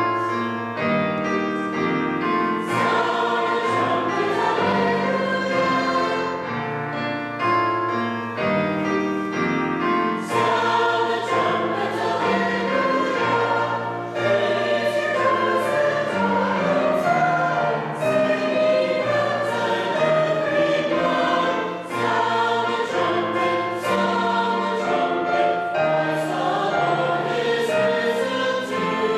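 Choir and congregation singing a hymn in full chords, the notes held and changing about once a second.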